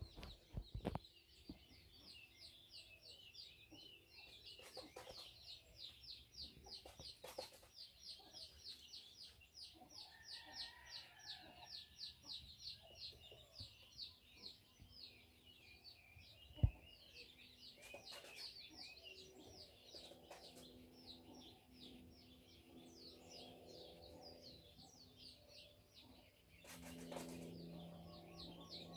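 Hen making soft, low clucking and drawn-out murmuring notes while being stroked, over a continuous fast, high chirping of small birds. One sharp click about halfway through.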